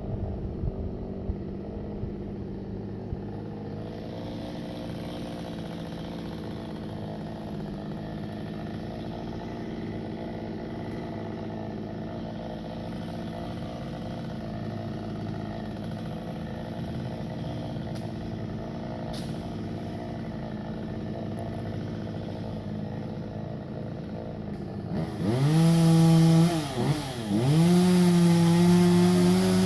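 Chainsaw idling steadily, then revved to full throttle twice near the end, dropping back briefly between the two revs.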